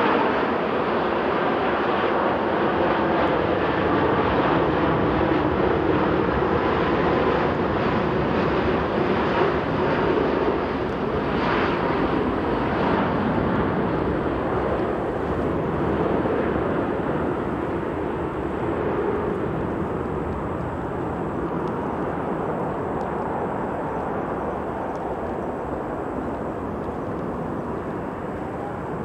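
Boeing 767-300ER's twin jet engines at takeoff power during the takeoff roll: steady, loud jet noise that slowly fades as the airliner accelerates away down the runway.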